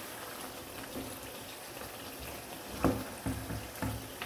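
Mutton masala sizzling in a wok as a wooden spatula stirs it, with several scrapes and knocks of the spatula against the pan from about three seconds in.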